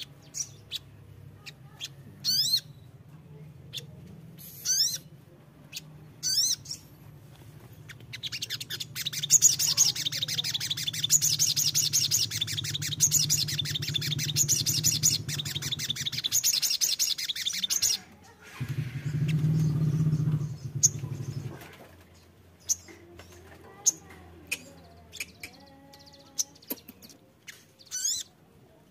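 Sunbird (sogon) calling: short sharp chirps at first, then a fast chattering trill lasting about ten seconds, then scattered chirps again near the end.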